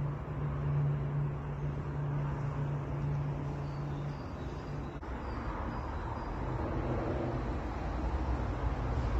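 Outdoor background noise with road traffic and a steady low hum that stops about four seconds in.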